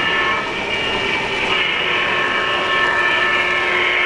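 O-gauge three-rail model trains running on a layout: a steady whirring rolling noise with several steady high whining tones held over it.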